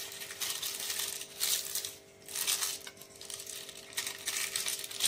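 Butter paper crinkling and rustling as fingers press it down into a metal cake pan, in about five short bursts. A faint steady hum runs underneath.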